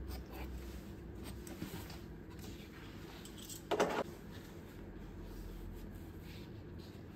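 Sheet of drawing paper being handled and clipped onto an easel board with a metal bulldog clip: soft rustling and light clicks, with one louder rustle of the bent sheet about four seconds in.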